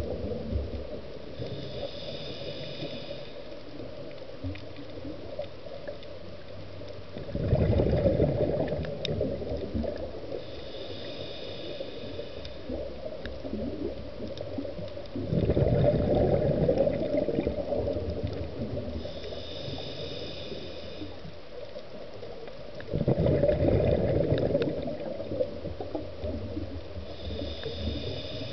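Scuba diver breathing through a regulator underwater. It goes in a slow cycle about every eight seconds: a high hiss on each inhalation through the demand valve, then a louder burst of exhaled bubbles a few seconds later. There are four inhalations and three exhalations.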